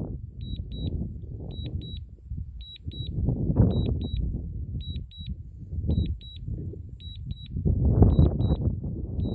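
A drone's return-to-home warning beeping a high double beep about once a second while the aircraft flies itself home automatically. Under it runs an uneven low rumble of noise that swells and fades.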